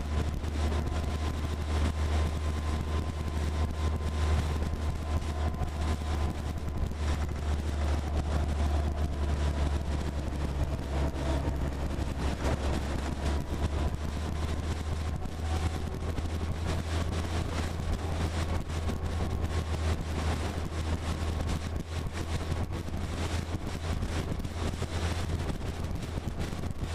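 Military jeep driving at a steady speed, heard from on the vehicle: a constant low engine drone with a faint high whine, mixed with wind noise and frequent small rattles.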